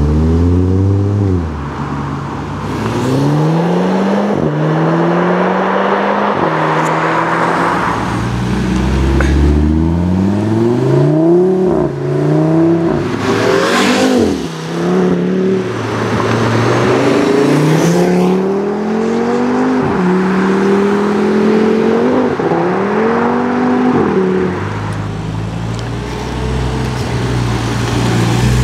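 Audi RS3 Sportbacks' turbocharged five-cylinder engines accelerating hard through the gears, several times over: each run climbs in pitch and drops back at the upshift. A few sharp cracks come around the middle.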